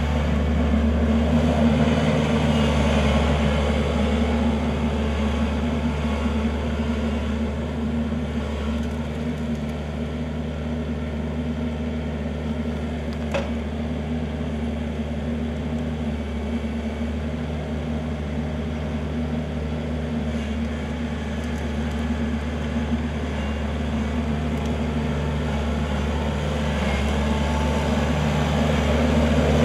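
Kubota L4400 tractor's four-cylinder diesel engine running at a steady speed, with one sharp click about thirteen seconds in.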